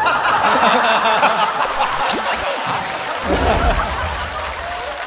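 Studio audience laughing, loudest at the start and dying down, with a low rumble coming in about three seconds in.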